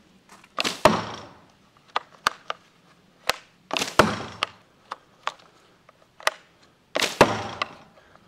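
Wooden rubber-band revolver slingshot firing toilet-brush arrows three times, about three seconds apart: each shot is a loud slap of released bands that trails off. Between shots come single sharp wooden clicks as the four-barrel cylinder is pressed free, spun forward one position and locks in place.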